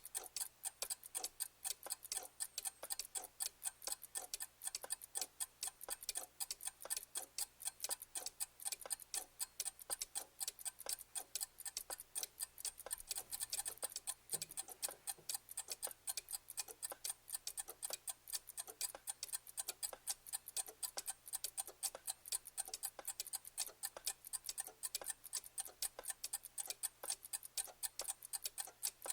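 Clock ticking in a fast, even rhythm of sharp ticks.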